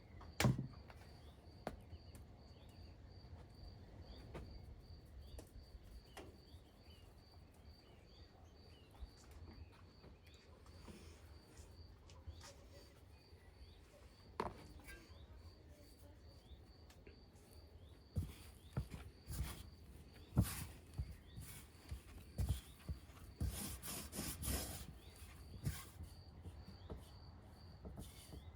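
Faint outdoor ambience: an insect, likely a cricket, chirping in a steady high pulse, about three chirps a second, with a few bird chirps. From about two-thirds of the way in there is a run of knocks and clatter.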